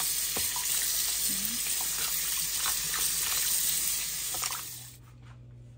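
Tap water splashing onto blanched beef ribs in a plastic basin as hands rub and rinse them. The splashing stops abruptly near the end, leaving a faint low hum.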